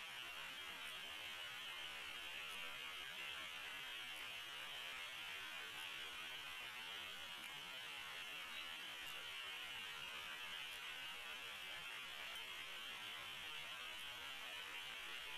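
Steady faint hiss from the nest camera's microphone, slowed to quarter speed, with faint high ticks about every second and a half.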